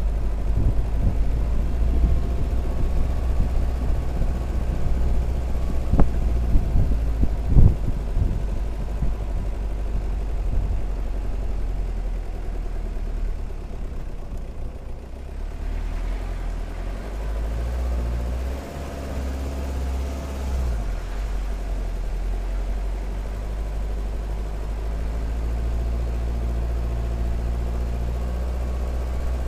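Jeep Cherokee XJ engine running at low, steady revs as the vehicle crawls up a rough dirt track, the engine note shifting slightly in the middle. Two sharp knocks come a second and a half apart about six seconds in.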